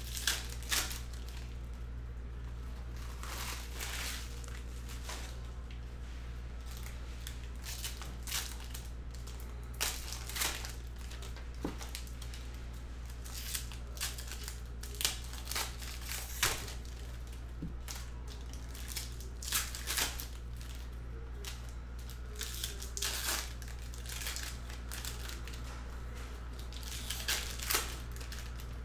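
Panini Mosaic football card packs being torn open, with wrapper foil crinkling and cards rustling as they are handled, in many short scratchy sounds over a steady low hum.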